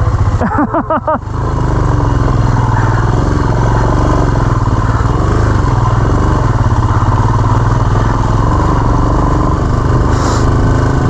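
Motorcycle engine running under way on a dirt trail, its pitch wavering up and down as the revs change.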